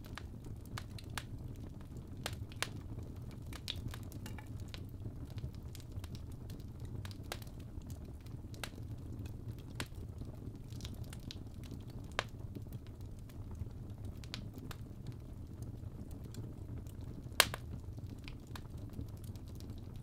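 Log fire crackling in a fireplace: irregular small pops and snaps over a steady low rumble of burning, with one sharp, much louder pop near the end.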